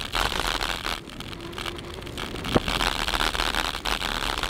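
Bicycle rolling along an unpaved road: tyres crunching over the loose surface, the bike and camera rattling, and wind on the microphone. The noise eases for about a second partway through, and there is one sharp click about two and a half seconds in.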